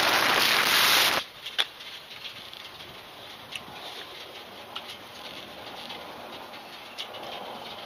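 Wind rushing over the camera at highway speed on a moving motorcycle, a loud steady noise that cuts off suddenly about a second in. After that comes quiet outdoor ambience with scattered faint clicks and short high chirps.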